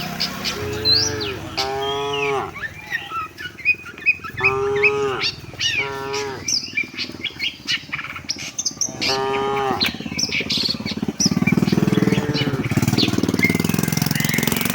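Cattle mooing: about five separate calls, each roughly a second long, from about a second in until near ten seconds, with small bird chirps in the background. A louder, steady rattling noise starts about eleven seconds in.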